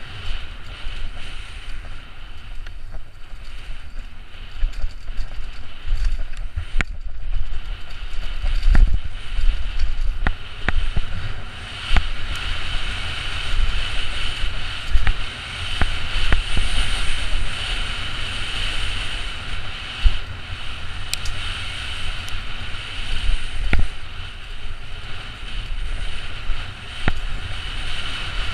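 Downhill mountain bike rattling and rumbling over a rough dirt trail at speed, with sharp knocks from bumps scattered through it. Wind buffets the helmet-mounted microphone.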